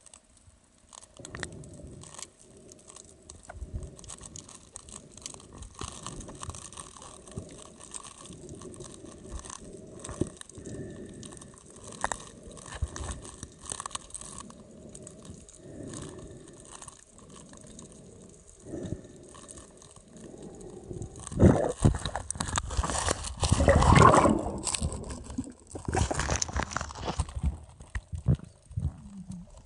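Muffled underwater noise picked up by a camera held in the sea while snorkeling: a low rumble of water movement that swells and fades about once a second, with scattered clicks and crackles. A louder, rougher stretch of sloshing comes a little past two-thirds of the way through and lasts several seconds.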